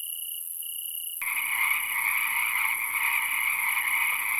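Night-time nature sound effect: crickets chirping in a regular pulsed rhythm, about two chirps a second, joined about a second in by a dense chorus of croaking frogs.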